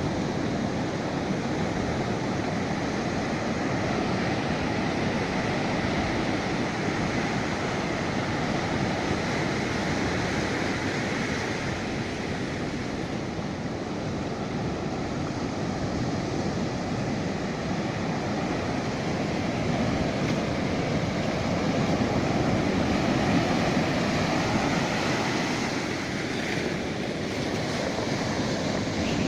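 Surf breaking and washing up a beach, a steady rushing with wind buffeting the microphone; the wash swells a little about two-thirds of the way through.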